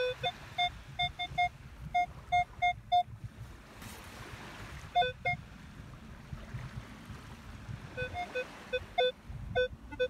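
Minelab Equinox 800 metal detector sounding bursts of short beeps in two pitches, one lower and one higher, as its coil passes back and forth over a buried target in beach sand. The beeps come in three runs, about ten quick ones at first, a few more midway, then another run near the end, over a steady low rumble.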